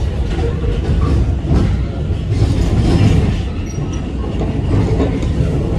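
R46 subway train running on the track, heard from inside the car as a loud, steady low noise.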